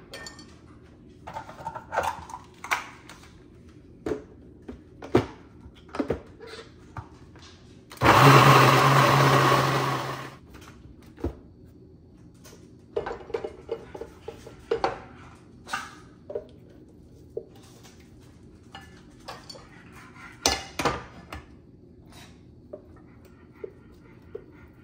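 Kitchen blender running in one loud burst of about two and a half seconds, puréeing boiled chickpeas with oil, lemon juice and spices into hummus. Scattered light knocks and clicks come before and after it.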